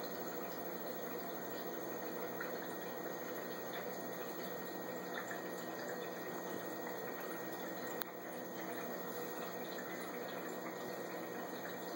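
Saltwater aquarium's water circulation running: steady running, trickling water with a low pump hum underneath, and a single click about eight seconds in.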